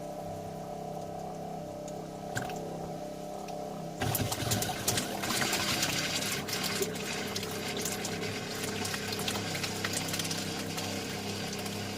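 Camper's water pump humming steadily. About four seconds in, a faucet opens and water runs hard into the sink as the line is pumped through until the antifreeze shows.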